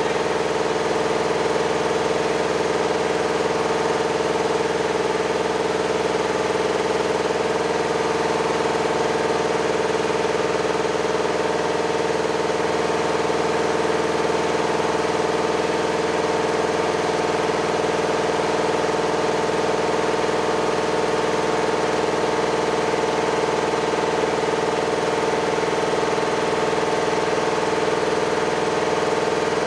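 A machine engine running steadily, a constant drone that does not change in pitch or level.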